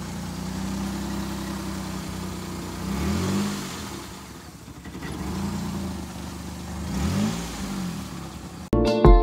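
A manual-gear motor vehicle's engine running, with the revs rising and falling briefly twice, about three seconds in and again about seven seconds in. Background music cuts in abruptly just before the end.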